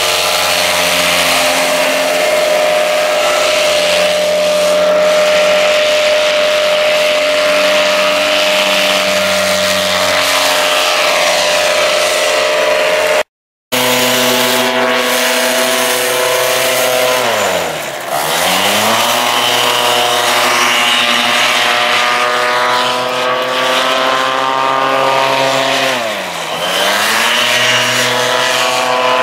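Paramotor engines and propellers running at high revs close by, a steady buzzing drone. In the second half the engine note falls sharply and climbs back twice. The sound breaks off for a moment near the middle.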